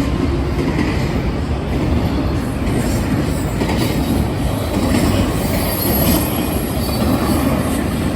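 A train running past on the rails: a steady, loud rumble and rattle of wheels on track, with a faint high wheel squeal about six seconds in.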